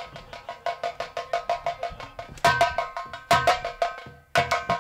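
Live folk dance accompaniment: fast drum strokes, about seven a second, over steady held tones, growing louder in surges about halfway through and again near the end.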